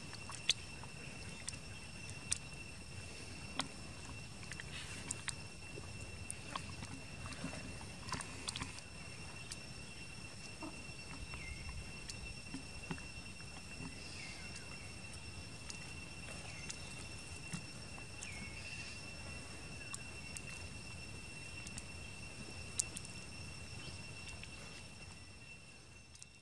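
Faint outdoor ambience: a steady high-pitched whine over a low hum, with scattered small clicks and a few faint short chirps. It fades out near the end.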